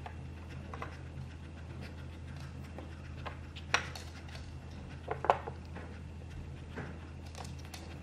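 A Chihuahua nosing the plastic lids and cones of a Trixie Dog Activity Flip Board treat puzzle: scattered light plastic clicks and rattles, with two sharper knocks about four and five seconds in.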